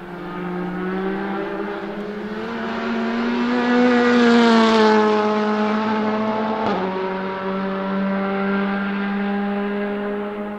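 Honda Civic Type-R TC1 WTCC race car's turbocharged 1.6-litre four-cylinder at high revs as the car passes: the engine note climbs, is loudest at the pass and drops in pitch as it goes by. About two-thirds of the way in a short crack and a step down in pitch mark a gear change, then it runs on steadily as the car pulls away.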